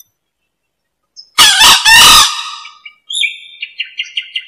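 A green junglefowl rooster gives one short, loud, harsh crow in three quick pieces, about a second and a half in. It is followed by a rapid run of short high chirping notes.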